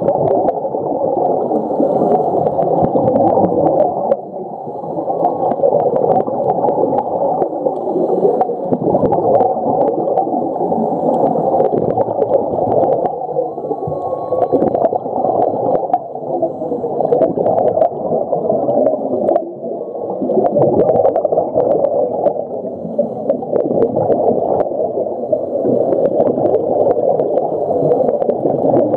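Underwater water noise around a camera held below the surface: continuous gurgling and rushing water with many scattered sharp clicks.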